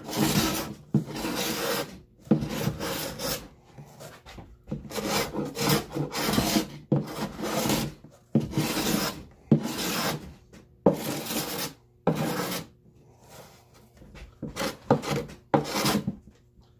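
Block plane shaving a wooden edge, about a dozen rasping strokes of roughly a second each with short pauses between, the last few shorter and quieter, as a 45-degree bevel is cut.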